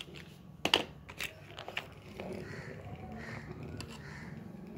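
Plastic toy vehicles clicking and knocking against each other and a plastic tray as they are handled, a few sharp knocks in the first two seconds, then a steady low hum.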